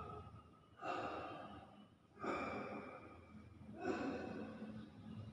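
Hill myna (beo) making cough-like sounds: three breathy bursts about a second and a half apart, each fading out.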